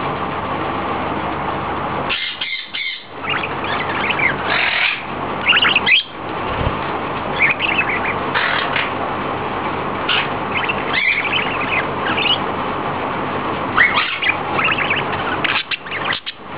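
Pet budgerigars chirping and chattering, with repeated clusters of short high chirps.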